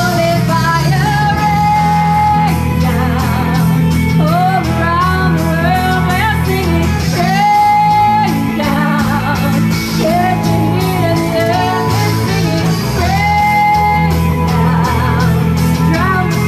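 A live rock band playing a Christian worship-rock song: a woman singing lead over electric guitars, bass guitar and drums.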